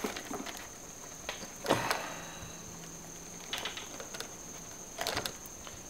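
Pliers gripping and working at the motor shaft inside a blender's plastic base: four short bursts of clicks and scrapes, a second or two apart, as the jaws slip while he tries to pull the motor out.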